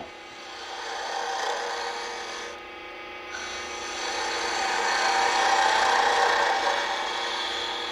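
Gouge cutting a spinning wood blank on a lathe: a continuous scraping cut over the lathe's steady hum. The cut eases off about two and a half seconds in, then comes back stronger.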